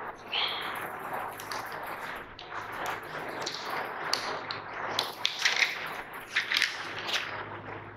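Rustling with scattered light taps and scrapes, close to a clip-on microphone: handling noise as something is moved near the mic, over a low steady room hum.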